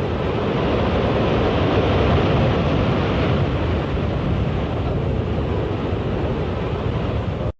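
Continuous low rumbling roar of a high-rise building collapsing, cutting off abruptly near the end.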